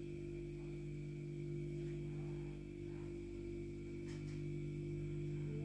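A steady low hum with a faint high tone above it.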